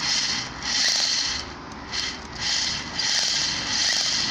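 Power drill boring into concrete in repeated short bursts, each under a second, a gritty rasping grind, run without hammer action so as not to chip the concrete.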